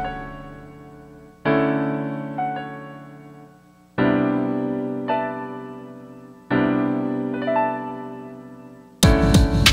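Background music: slow piano chords, each struck and left to ring and fade, a new one about every two and a half seconds. Near the end a fuller beat with drums cuts in.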